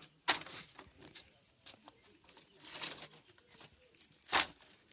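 Pieces of firewood being handled: a sharp knock near the start, softer clatters and a scrape in the middle, and another sharp knock near the end.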